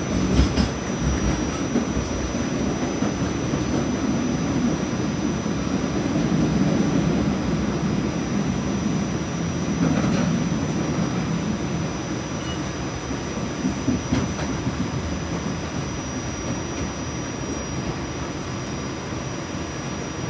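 RTA Blue Line light-rail car running along the track, heard from on board: a steady rumble of wheels and running gear with a thin steady high whine and a few short knocks, one right at the start and more about halfway through.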